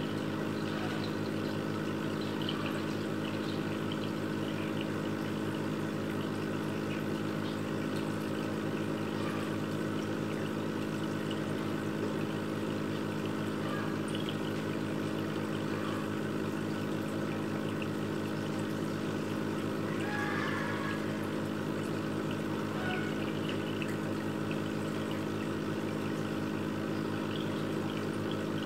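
Aquarium pump humming steadily, with water trickling and small bubbling blips over it.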